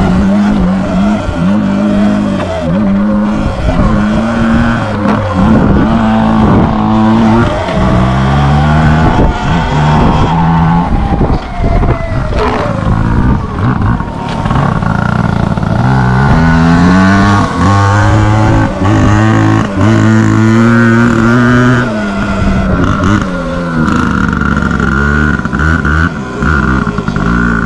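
2022 Sur Ron X electric dirt bike being ridden, its motor whine rising and falling as it speeds up and slows down, over a loud rushing rumble.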